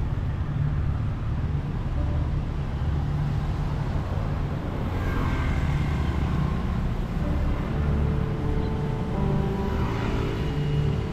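Road traffic: a steady low engine rumble, with vehicles swelling past about halfway through and again near the end.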